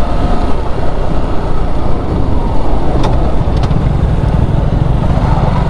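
Motorcycle engine running and wind rushing over the rider's microphone as the bike slows on a rough, broken road, with a few sharp clicks about three seconds in.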